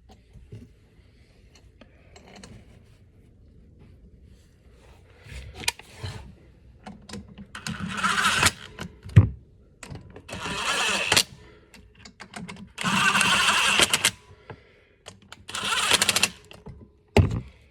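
Impact driver hammering the pump's four bolts home, in four bursts of about a second each, after a few seconds of faint handling clicks.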